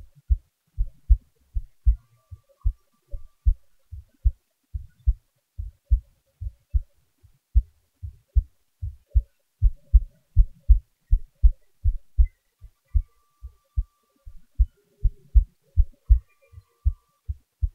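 A person's heartbeat recorded close up and amplified: a steady, even rhythm of low, short paired thumps (lub-dub) at a normal, unhurried rate.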